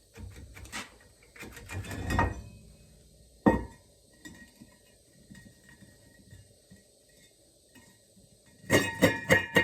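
Metal parts and tools being handled: scattered clinks and knocks, one sharp knock about three and a half seconds in, and a fast run of ringing metallic clinks near the end.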